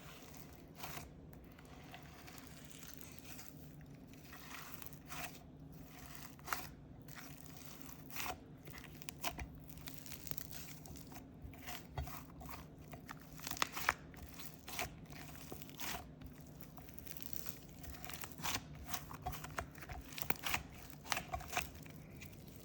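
Slime mixed with miniature foam balls being squished and kneaded by hand, giving faint, irregular crackles and crunches that come more often in the second half.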